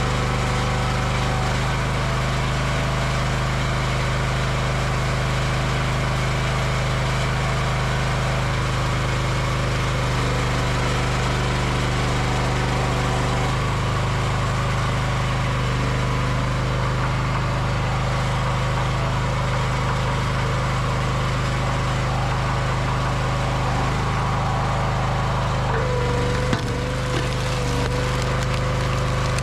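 Honda engine on a hydraulic log splitter running steadily, its note shifting slightly a few times. Near the end, a sharp crack as the ram drives a round into the multi-way wedge and the wood starts to split.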